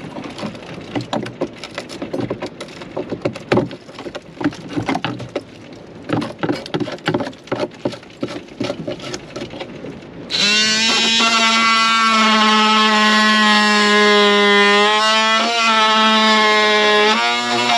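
Irregular sharp knocks and clicks of hand work on the boat's timber, then about ten seconds in, music with held, changing pitched notes comes in abruptly.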